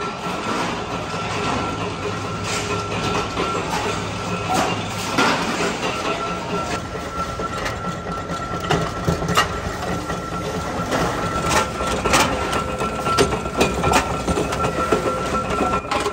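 Sheet-metal workshop noise: a machine running with a steady whine and a low hum, under irregular metal knocks and clicks that come more often in the second half.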